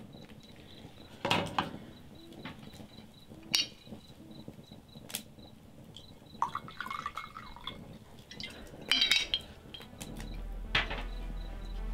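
A handful of separate sharp clinks and knocks of a drinking glass being handled. A low music drone comes in near the end.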